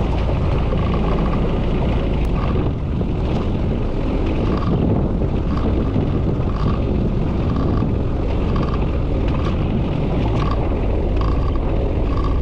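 Small fishing boat's engine running steadily as the boat motors slowly ahead.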